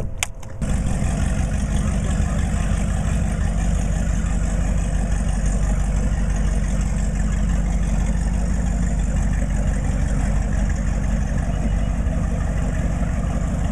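Boat engine running steadily at a constant speed, a continuous low hum that starts abruptly about half a second in.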